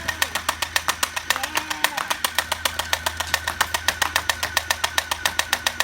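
Airsoft UZI firing on full auto: a fast, even stream of shots, about eleven a second, over a steady low hum. It stops just before the end.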